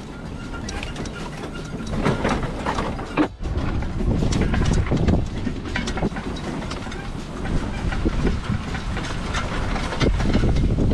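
Continuous loud rattling and clattering with many short knocks, briefly dropping off about three seconds in.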